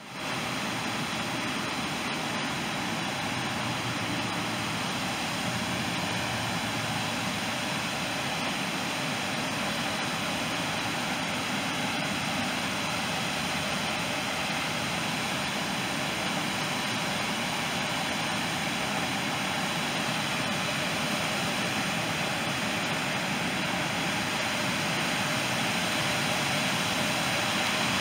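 Water pouring over a low concrete spillway, a steady rushing sound that grows slightly louder toward the end.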